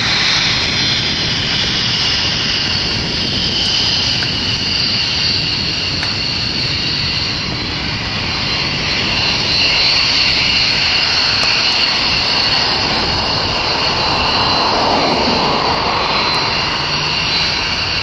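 F-15 Eagle fighter jets' engines running at taxi power: a steady high-pitched whine over a broad rushing noise, with a slow sweeping shift in tone about fifteen seconds in.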